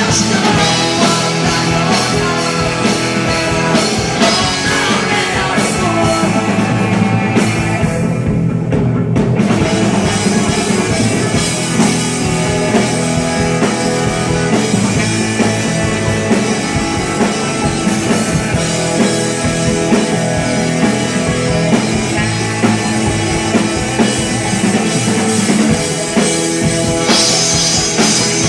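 Live rock band playing loud, with drum kit, guitars and some singing; the cymbals briefly drop out about eight seconds in.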